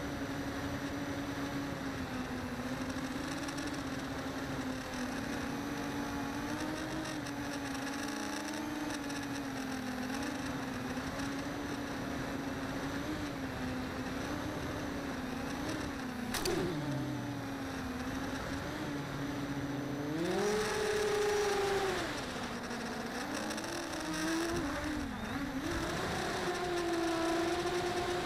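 Whine of a radio-controlled model's electric motor that wavers with the throttle, dips sharply about two-thirds of the way through, then rises to a higher pitch.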